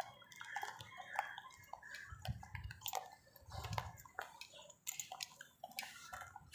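Rottweiler nibbling and licking at its own foreleg: faint, irregular mouth clicks and smacks.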